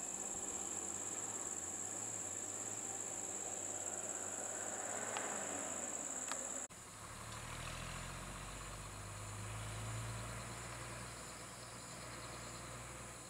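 Steady high-pitched drone of insects over the sound of vehicle engines on the road, with a vehicle passing about five seconds in. After an abrupt cut about halfway through, a low engine rumble of idling or slow-moving vehicles takes over and the insect drone is fainter.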